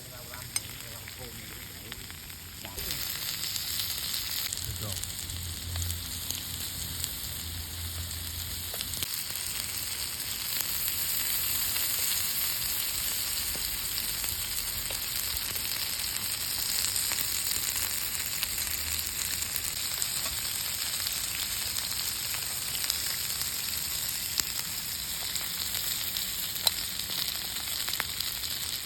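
Mussels grilling with scallion oil, sizzling steadily with a few sharp pops; the sizzle grows louder about three seconds in.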